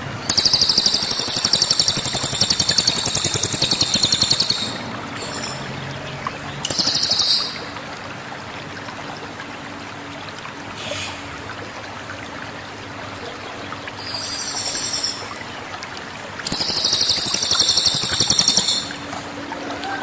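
A Sumatran cililin (rufous-tailed shama) singing loud, fast, high-pitched trilling phrases in several bursts of one to four seconds separated by pauses, over a steady rushing sound like running water.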